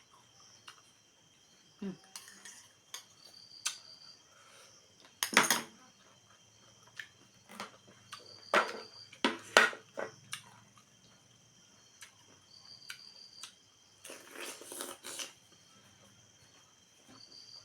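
Cutlery clinking and knocking against a dish while eating: scattered sharp clicks, with louder knocks in the middle and a cluster about fourteen seconds in. A faint short high chirp, like an insect's, repeats every few seconds in the background.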